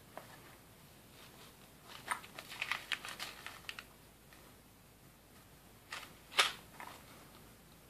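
Light handling noises from a zippered leather sheath and a paper silica gel packet: a run of small crackly rustles and clicks about two seconds in, then one short, sharper rustle near the end.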